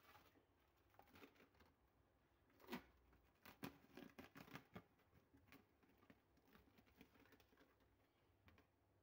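Faint crinkling and crackling of plastic cling film being peeled off a bowl of risen dough, with a cluster of small clicks from about three to five seconds in.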